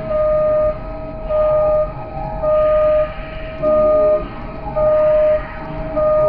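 Repeating electronic beep at one steady pitch, about one half-second beep each second, over steady low background noise.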